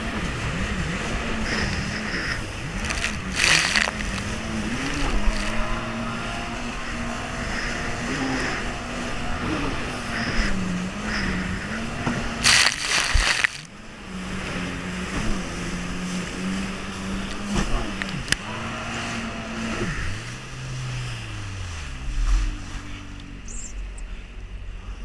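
Jet ski engine running across choppy water, its pitch rising and falling with the throttle, with water spray and wind on the microphone. A loud splash of water hits about halfway through, and near the end the engine winds down.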